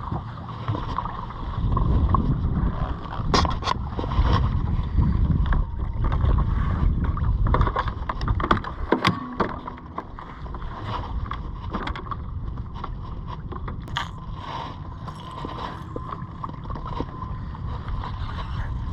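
Small jon boat under way, its motor running steadily with a low rumble of water and hull that eases about halfway through. A few light knocks come from the boat.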